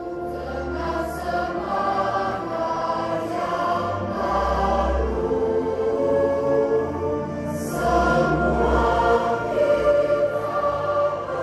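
A choir singing over music.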